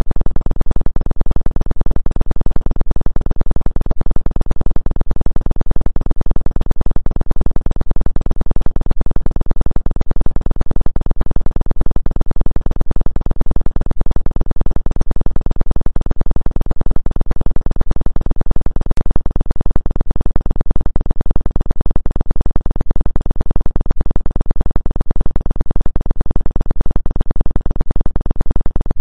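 Synthesized low electronic tone, steady and evenly pulsing throughout, made as a 2 Hz 'acupuncture' frequency-healing sound.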